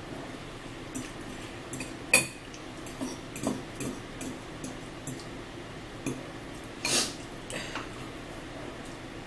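Metal forks clinking and scraping against bowls while eating, in scattered short taps, the loudest about two seconds in and a longer scrape about seven seconds in.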